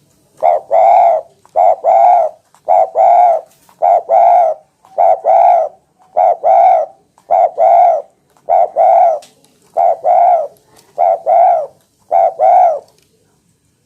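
Spotted dove (tekukur) cooing loudly, about eleven two-note coos in a steady rhythm of roughly one a second.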